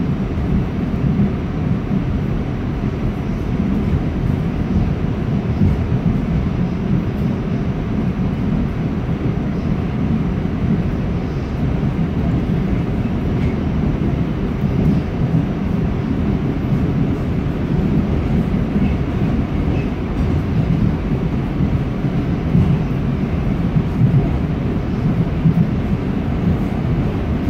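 R46 subway car of the A train running along the line: a steady low rumble of wheels on the rails and the moving car.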